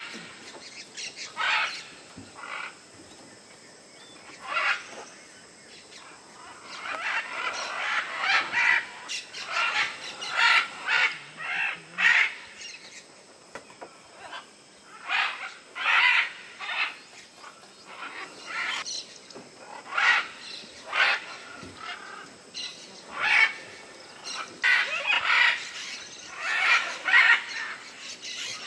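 Parrots squawking: harsh, raspy calls at irregular intervals, some coming in quick runs of several.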